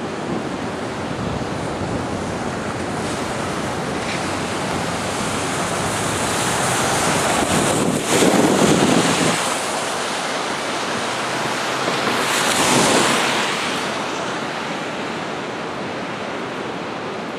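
Steady rushing wind noise buffeting the microphone of a moving camera, swelling louder about eight seconds in and again around thirteen seconds in.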